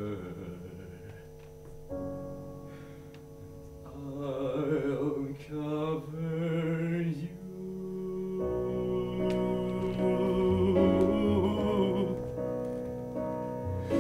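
Slow, quiet piano accompaniment with a man singing over it with vibrato. About eight seconds in, the piano grows fuller and louder.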